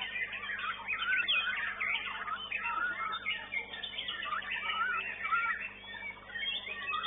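Many caged songbirds singing at once at a bird-song contest: a dense, unbroken chorus of overlapping whistles, trills and chirps, with a faint steady hum beneath, heard through a CCTV camera's microphone.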